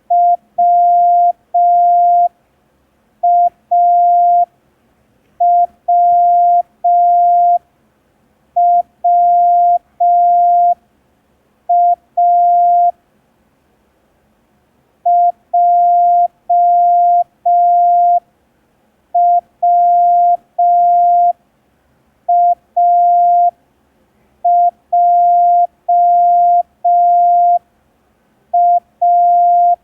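Morse code practice tone of about 700 Hz keyed in dots and dashes, sending the practice groups WAWWA and then JWAJA, with long pauses between letters and a longer gap between the two groups.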